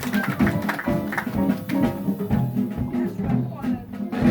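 Instrumental music with a low bass line and short percussive hits.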